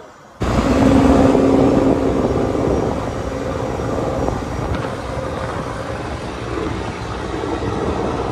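Fishing trawler's engine running steadily, a low hum under a loud rushing noise, starting abruptly about half a second in.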